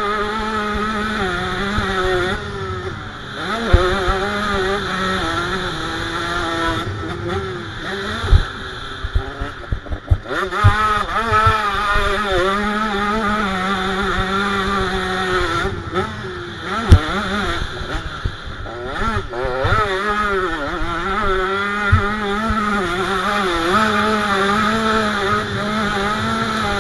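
KTM 85 SX dirt bike's two-stroke single-cylinder engine revving hard under riding, its pitch rising and falling constantly with throttle and gear changes. Several sharp knocks cut in along the way.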